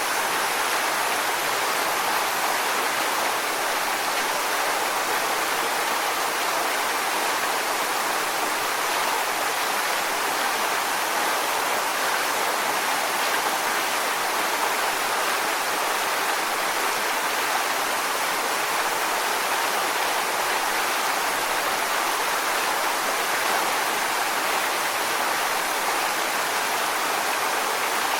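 Waterfall: water falling onto rocks in a steady, unbroken rush.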